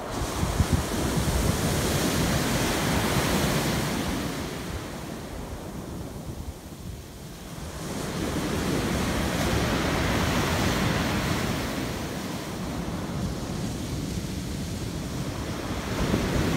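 Sea surf breaking and washing on a pebble beach, the rush of water swelling and fading with each wave: two big surges with a lull between them, and another wave building near the end.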